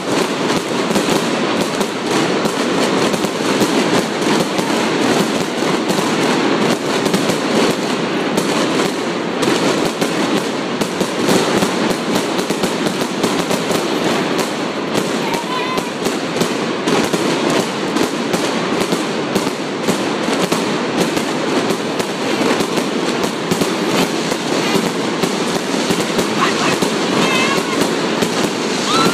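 Firework display: dense, continuous crackling and popping of many shells bursting at once, without a break.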